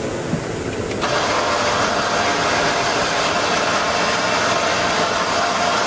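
Lamborghini Countach 5000 S's carbureted V12 idling steadily, heard close at its quad exhaust tips. About a second in, the sound jumps louder and brighter.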